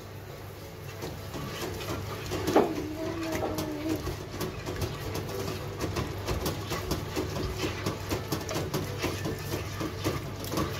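Spatula stirring thick curry gravy in a nonstick pot, with quick scraping clicks against the pot from about four seconds in. A single knock about two and a half seconds in is the loudest sound.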